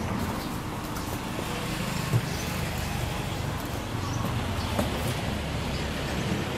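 Steady low background rumble, like distant traffic, with a sharp knock about two seconds in and a lighter click near five seconds.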